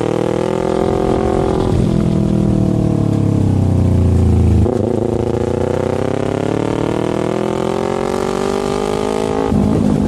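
Motorcycle engine running on the move. Its pitch sinks over the first few seconds, jumps about halfway through, then climbs steadily, with another change near the end.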